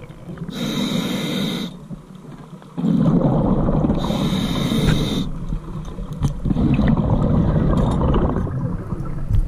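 Scuba diver breathing through a regulator underwater: two hissing inhales with a high whistle, about half a second and four seconds in, and low rumbling bubbles of exhaled air.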